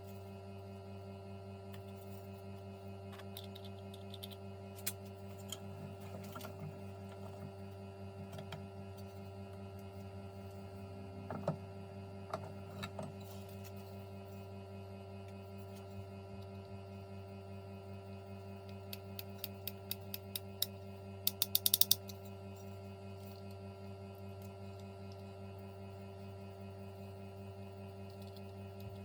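Steady low electrical hum, with scattered small clicks and, about two-thirds of the way in, a quick run of clicks that grow louder.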